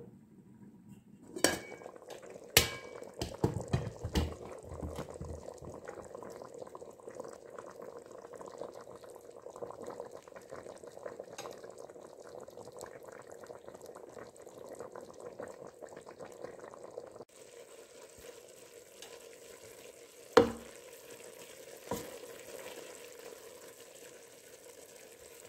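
Lamb cooking in an aluminium pot with a steady sizzle, and a wooden spoon stirring and knocking against the pot. Sharp metal clanks and knocks come in the first few seconds as the pot lid comes off, and two more knocks come near the end.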